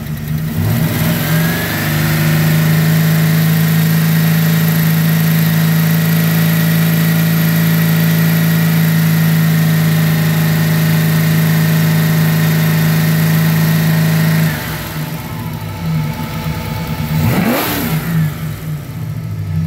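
Car engine revved up from idle over the first couple of seconds and held steady at about 3250 rpm for around twelve seconds, so the ignition timing can be read, which shows 38 degrees of advance. It then drops back toward idle, with a brief dip and rise in revs near the end.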